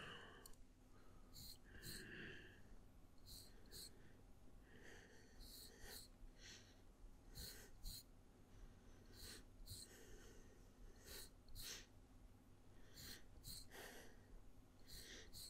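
Quiet razor shaving: short, faint scraping strokes, most of them in pairs, repeating every second or two.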